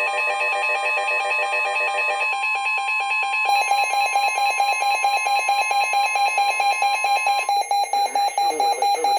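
Weather alert radio sounding its alert alarm: a loud, rapid beeping that repeats several times a second and changes its pattern twice. Under it runs a steady warning tone that cuts off near the end, and a synthesized voice starts reading the severe thunderstorm warning while the beeping continues.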